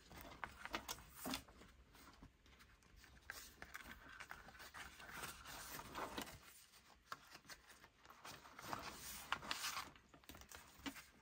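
Faint rubbing and rustling of a notebook's covers, pages and a leather zip pouch being handled, with a few light knocks.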